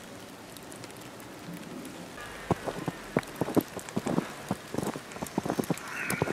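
Footsteps crunching through deep fresh snow. They start about two seconds in as irregular crunches, several a second, over a faint steady hiss.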